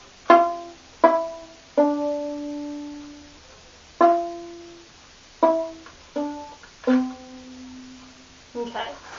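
Viola played pizzicato: seven plucked notes of a slow melody, each starting sharply and ringing away, with the third and last notes held longer. The notes get somewhat softer through the phrase, a decrescendo.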